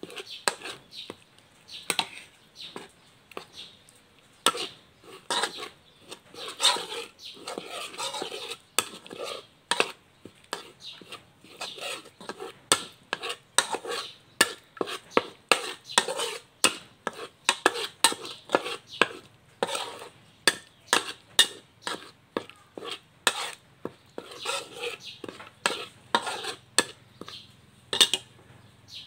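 Stainless steel spatula scraping and clinking against a metal wok as it stirs and spreads curry paste frying in coconut cream, a constant run of sharp irregular clicks and scrapes.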